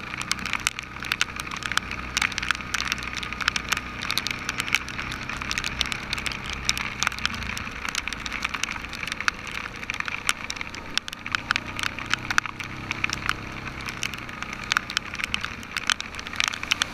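Heavy rain: dense, irregular sharp clicks of raindrops striking right at the microphone, over the low steady hum of the ATV's engine.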